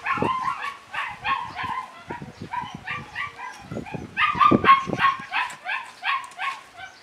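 German Shepherd puppy barking in a quick run of short, high-pitched yaps, about three a second, thinning out briefly midway before a denser run. It is playful barking during a tug game with a cloth toy.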